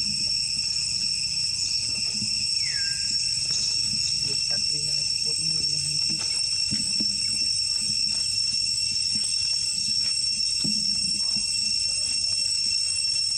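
Steady, high-pitched insect chorus holding several constant pitches, under a low outdoor rumble.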